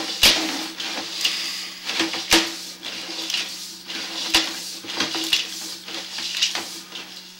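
Irregular knocks and clatters as a sewer inspection camera's push cable and reel are handled, about one or two sharp knocks a second, over a steady low hum.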